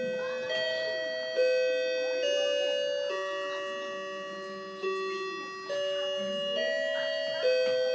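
Grandfather clock chiming a tune: struck chime notes at changing pitches, about one a second, each ringing on and fading into the next.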